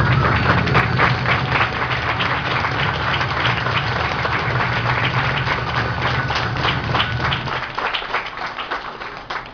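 Crowd applauding with dense, irregular clapping at the end of a song. The low hum of the song's music runs underneath and stops about eight seconds in.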